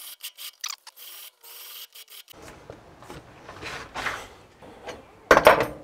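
Light scraping and rubbing on a steel pulley at the lathe, rising and falling a few times, then a loud sudden clatter of metal near the end.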